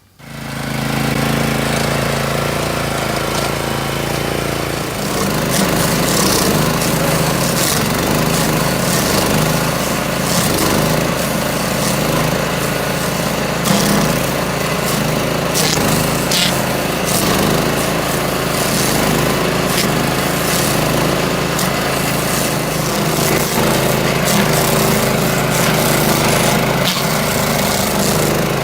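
Self-propelled stump grinder's engine running, with its cutter wheel grinding into a stump from about five seconds in: a steady engine note that turns rougher and uneven under load, broken by scattered sharp ticks and knocks.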